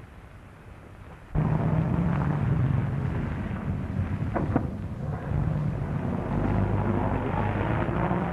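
Engine of an open 1930s touring car running as the car drives along, a steady low rumble that starts suddenly about a second and a half in.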